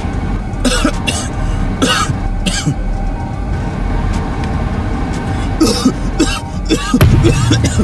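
A man coughing in short, harsh fits: a few coughs in the first three seconds, then more from about halfway through, with the loudest cluster near the end.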